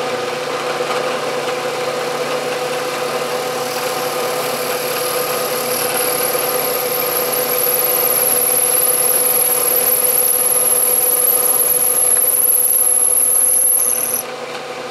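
Bridgeport milling machine running as a half-inch ball end mill plunges into aluminum, a steady mechanical hum of spindle and cut. A high, thin whine joins about six seconds in and stops about a second before the end, when the sound drops slightly.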